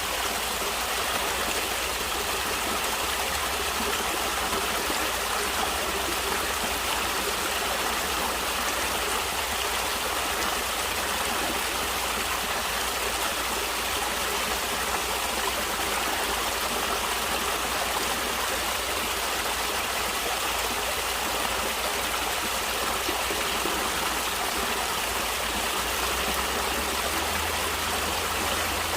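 Water flowing steadily in a natural stream, an even rushing sound with no breaks.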